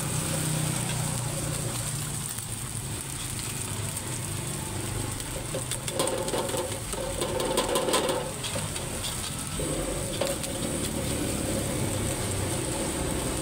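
Fried rice sizzling in a wok over a gas burner while a metal ladle scrapes and clinks against the wok as the rice is stirred and tossed. A run of sharper ladle clicks comes about six to eight seconds in.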